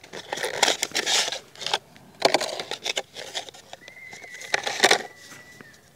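A knife's retail box being opened and handled: irregular rustling and scraping of packaging with sharp clicks, in several short bursts.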